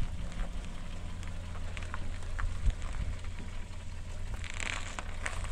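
Small hatchback creeping forward at low revs, a steady low rumble with scattered light crackles and clicks.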